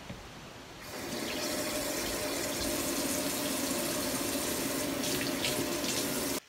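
Bathroom sink tap running, water splashing into the basin, with a faint steady hum in the pipes. It starts about a second in and cuts off abruptly just before the end.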